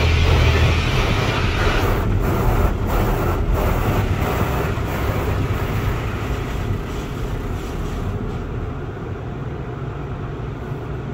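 Automatic tunnel car wash heard from inside the car: water spraying and wash machinery working over the car in a steady rushing noise with a low rumble. It grows quieter and duller over the last few seconds.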